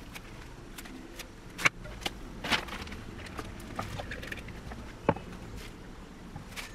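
Handling of cut sunflower stems, scissors and wrapping paper on a tabletop: light rustling with a few sharp clicks and knocks, the loudest about a second and a half in and again near five seconds.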